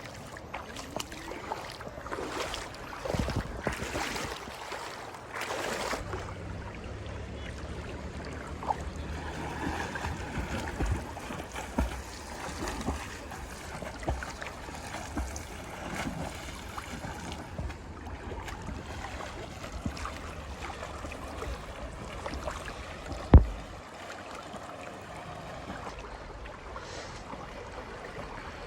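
River water rushing and splashing around someone wading and dipping in it, with scattered small knocks and a steady low rumble from about six seconds in. One sharp knock stands out about 23 seconds in.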